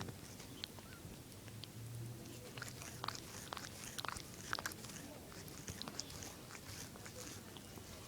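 A cat licking and nibbling at its paw while grooming: irregular wet smacking and clicking, busiest a few seconds in.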